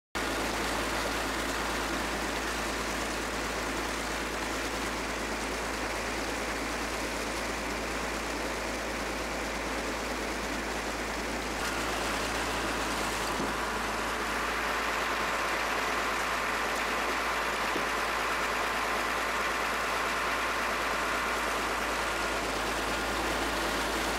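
A boat's engine running steadily, heard on board, under a constant rushing noise; the sound shifts slightly about halfway through.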